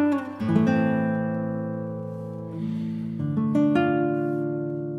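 Background music: plucked guitar notes, a few new ones struck now and then, each ringing on and slowly fading.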